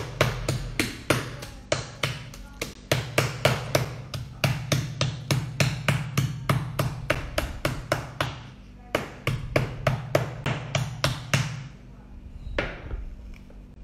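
Metal meat mallet pounding deboned chicken flat through cling film on a worktop, to bring it to an even thickness. Rapid, even strikes about three to four a second, each with a dull thud, with a couple of brief pauses, stopping near the end.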